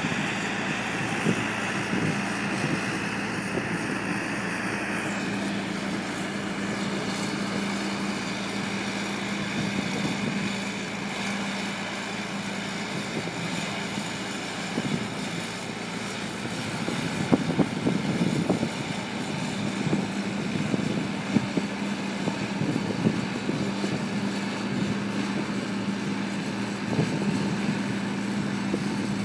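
Manure lagoon agitation boat running steadily, its engine keeping up a constant hum over the rush of the slurry it is churning, with scattered short knocks in the second half.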